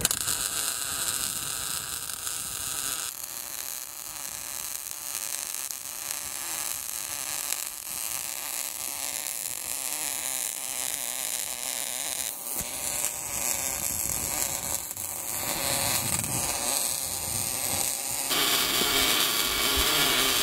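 MIG welder arc on a steel boat hull, a steady hiss with the welder running well. The tone of the hiss changes abruptly three times.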